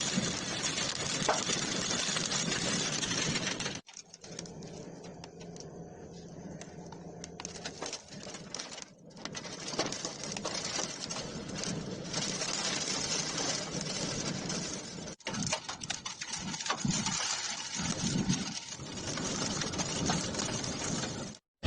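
Strong wind rushing and buffeting a phone's microphone, a steady noisy rush that breaks off abruptly several times where one clip cuts to the next.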